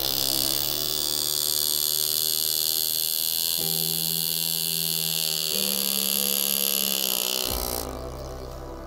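Background music of held, droning tones that step up in pitch twice, with a bright steady hiss over most of it that stops near the end.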